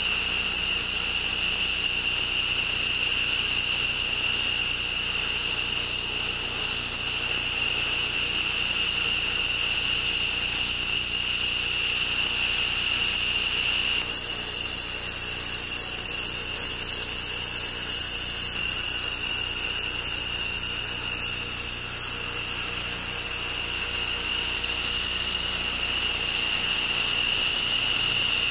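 F-15 fighters' jet engines idling on the flight line: a steady, high-pitched whine with several tones. The mix of tones shifts abruptly about halfway through, and the sound grows a little louder near the end.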